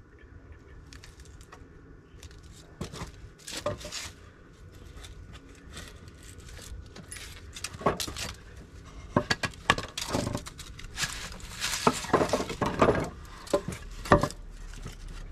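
Scattered clinks of metal and knocks of wood from tools and 2x4 lumber being handled on sawhorses, sparse at first and coming thick and fast in the second half.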